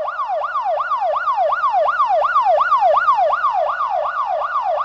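Toy police car's electronic siren wailing in a fast, even up-and-down yelp, about four cycles a second.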